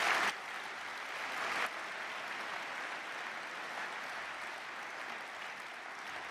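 A large audience applauding steadily in a hall, loudest right at the start.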